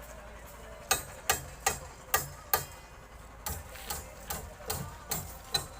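Hammer striking repeatedly, about eleven sharp blows at a bit more than two a second. The first five blows are the loudest, and a softer run of six follows.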